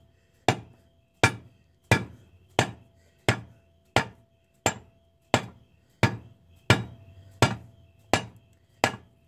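Steady hammer taps on the end of a Grizzly G0602 lathe spindle, about thirteen blows evenly spaced under a second apart, each with a short metallic ring. The blows drive the spindle through its bearing race, held in a bearing separator, to press the race off.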